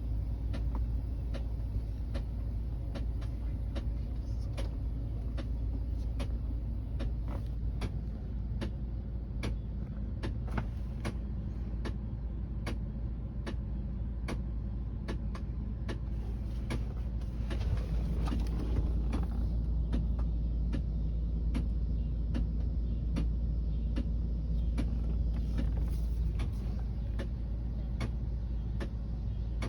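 Car air-conditioning system making a repeated clicking, about two sharp clicks a second, over the steady hum of the car running. The clicking is the A/C noise the owner is showing.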